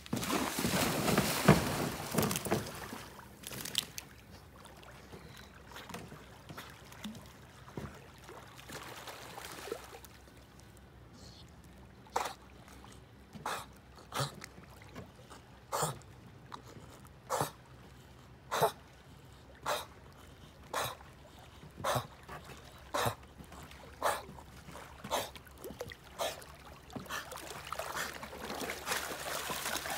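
A bull terrier splashing into lake water, then swimming with short puffs of breath about once a second, and splashing again as it wades out through the shallows near the end.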